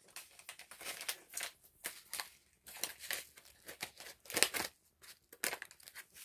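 Foil pouch of isotonic drink powder crinkling in an irregular run of crackles as it is handled and opened.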